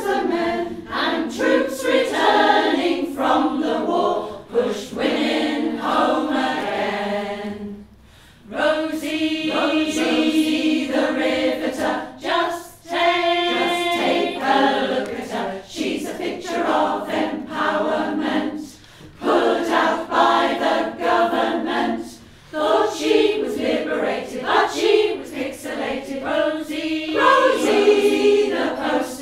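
Women's choir singing unaccompanied, in phrases with short breaks between them.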